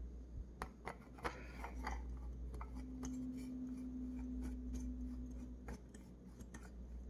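Metal parts of an Ultrasabers Spectre lightsaber hilt being handled and screwed together: a string of small clicks and taps, then a few seconds of steady rubbing as the emitter's threads turn onto the hilt.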